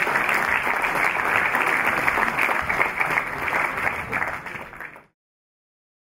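Audience applauding, many hands clapping, fading out and then cutting off abruptly about five seconds in.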